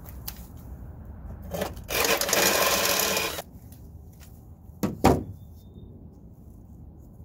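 Cordless drill with a step bit running for about a second and a half, grinding through the last of a switch hole. A single sharp knock follows a couple of seconds later.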